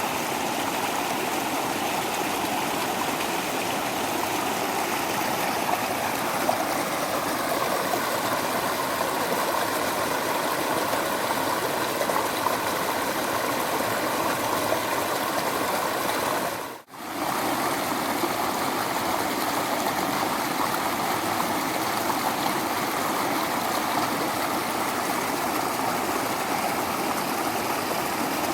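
Waterfall: water rushing and splashing in a steady, unbroken stream. It drops out briefly about two-thirds of the way through, then returns at the same level.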